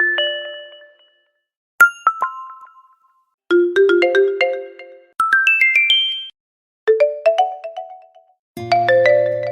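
Phone notification tones played one after another with short silences between: about six different brief chimes and quick runs of bright synthetic notes, each ringing out and fading. The last has a low sustained bass note under it.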